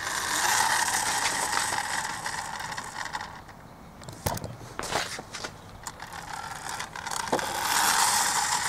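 Friction motor of a vintage B&S tinplate toy helicopter whirring as it is pushed along, its flywheel and gears spinning the rotors. The whir winds down about three to four seconds in, a few clicks follow, and it rises again near the end as the toy is pushed once more.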